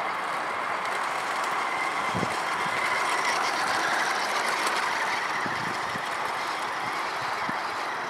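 Radio-controlled toy rally truck's electric motor and gearbox whining steadily as it drives over snow, getting louder as it passes close by about three to five seconds in, then fading as it drives off.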